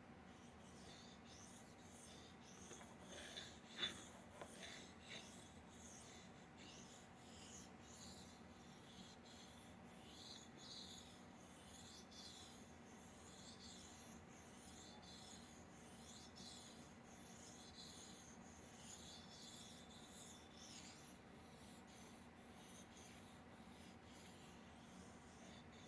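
Straight razor blade being honed on an oiled sharpening stone: faint, even scraping strokes about one a second, with a sharper tap about four seconds in.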